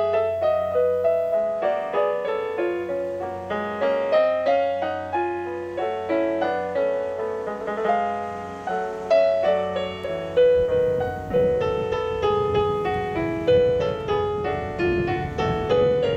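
Digital stage piano played solo: a quick, dense stream of classical notes. From about ten seconds in, a low rushing noise sits beneath the notes.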